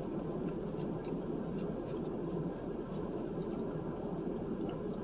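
Steady low background hum of room noise, with faint soft clicks scattered through it.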